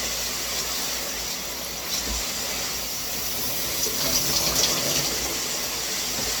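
HydroJet shower head spraying water at full pressure: a steady hiss of rushing water.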